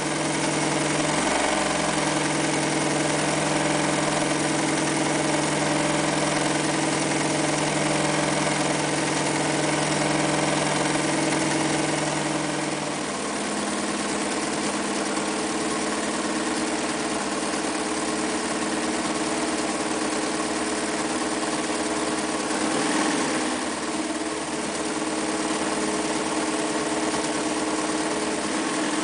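Early-1960s Mitsubishi MAZ4 all-metal sewing machine running steadily at speed, sewing decorative embroidery stitches. Its low hum shifts about halfway through.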